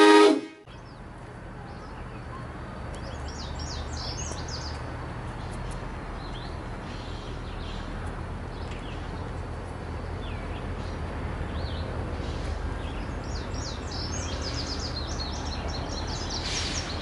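Small birds chirping in quick bursts, twice, over a steady low outdoor rumble. The end of a train horn blast cuts off about half a second in.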